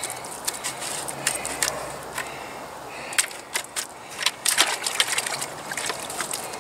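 Thick hydraulic cement being stirred by hand in a plastic bucket with a mixing stick: wet scraping with irregular sharp knocks and clicks as the stick works the mix.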